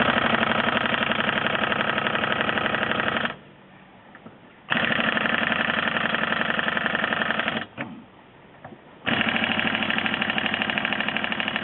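Impact wrench hammering on seized, overtightened wheel lug nuts in three bursts of about three seconds each, a rapid rattle of blows with short pauses between, without breaking them loose.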